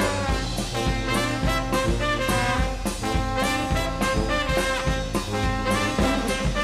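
New Orleans-style brass band playing live: saxophones, trumpet, trombone and sousaphone over a bass drum with cymbal and a snare drum, with a steady beat.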